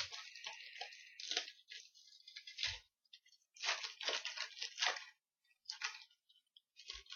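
Trading-card pack wrapper crinkling and tearing, with cards handled in stop-start bursts and a few soft thumps on the table.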